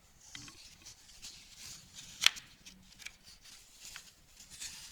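Paper rustling and sliding as a picture book's page is handled and turned, with one sharp click a little over two seconds in.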